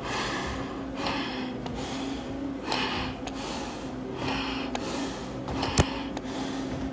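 A firefighter breathing hard inside an SCBA face mask, a hissing breath in and out at regular intervals, from the exertion of climbing stairs in full gear. Underneath is a steady low hum, and there is one sharp knock near the end.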